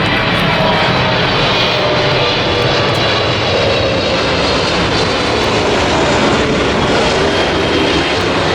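Jet airliner flying low overhead on its approach to land, a steady, loud engine noise.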